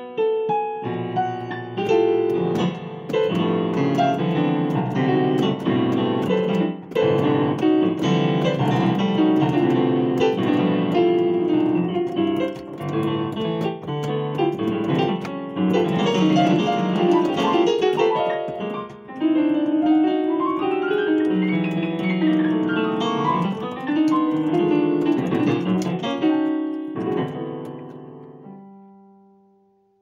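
Digital piano played with both hands in a dense, fast passage of chords and runs, with a quick rising and falling run about two-thirds of the way through. It ends on a held chord that fades away near the end.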